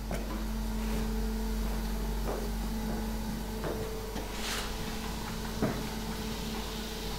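A few soft knocks and a short rustle from people moving about the room, over a steady low hum.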